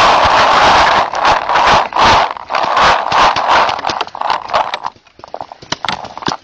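Rough handling noise and footsteps of a paintball player moving with a phone camera: irregular loud rushes of noise about twice a second, with a few sharp clicks near the end.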